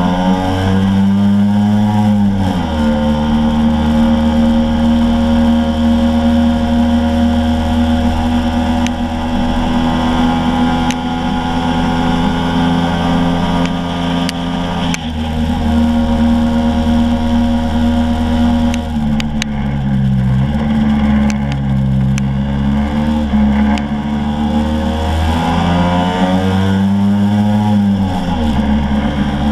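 Scooter engine running as it climbs a mountain road, holding a steady pitch for long stretches. Its pitch drops sharply about two seconds in and again near the end, and wavers in between as the engine speed changes.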